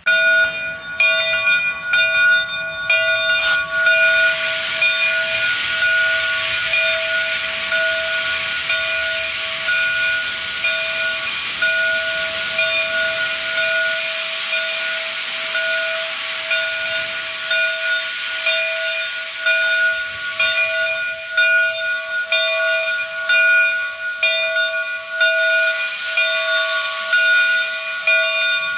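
Southern 401, a 2-8-0 steam locomotive, venting steam from its open cylinder cocks. A loud, steady hiss fills in about four seconds in, over a steady high ringing tone that wavers slightly.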